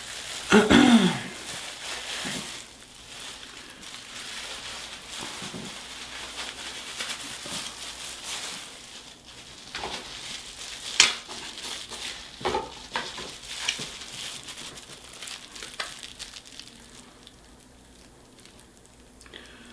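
Hair dye being worked by hand through wet locs: a soft, uneven crackling and squishing rustle, with a few sharp clicks partway through and a short hum just under a second in.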